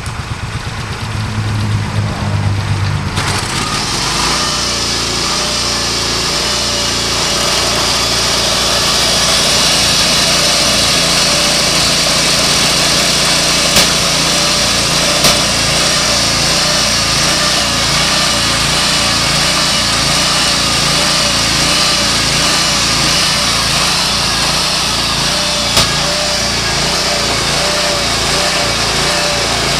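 J & S portable sawmill running: its engine comes up to speed about three seconds in, then holds a steady, loud drone. There are three sharp ticks, two in the middle and one near the end.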